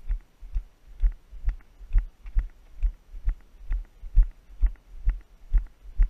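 Brisk walking footsteps picked up through a body-worn camera: an even run of dull thumps, a little over two a second, each with a light sharp click.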